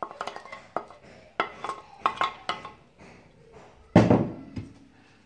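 Chopped onion being scraped off a plate into a stone-coated cooking pot: quick clicks and taps of the plate and wooden spoon against the pot's rim. About four seconds in comes one loud knock with a short low ring, a dish or pot being knocked.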